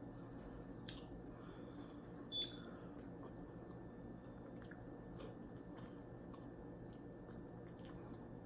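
Faint chewing and soft mouth clicks of someone eating, over a steady low hum. There is one sharper click about two and a half seconds in.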